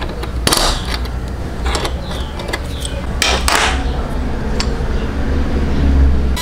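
Clicks and scrapes of small plastic and metal parts as a model car is pried apart with a screwdriver and its interior tub is worked loose, a few sharp handling noises over a low steady hum.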